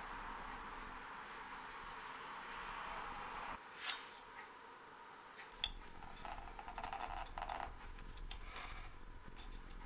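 Leatherworking tool sounds on a wooden workbench. A steady hiss gives way to two sharp knocks as the tools and leather pieces are set down. Then come short scraping strokes as a skiving knife pares the veg-tan leather strap piece.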